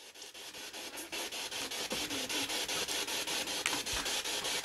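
P-SB7 spirit box scanning through radio stations: a hiss of static chopped into quick, even steps at about ten a second, starting up just as it is switched on.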